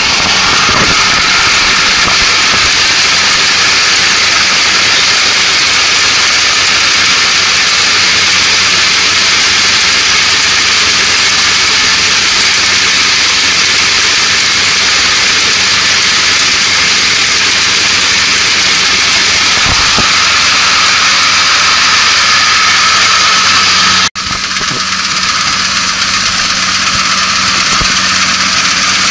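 Kubota ANR460 combine harvester running steadily under load as it cuts lodged rice: a dense engine and machinery din with a steady high whine. It drops out for an instant about 24 seconds in, then continues a little quieter.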